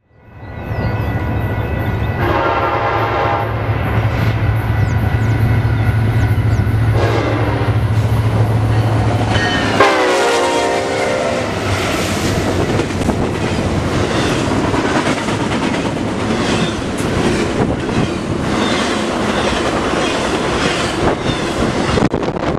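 Union Pacific freight train's lead locomotive sounding its horn in three blasts over the drone of its diesel engines, the last blast falling in pitch as the locomotives pass. Then a rhythmic clickety-clack of wheels over the rail as the intermodal cars roll by.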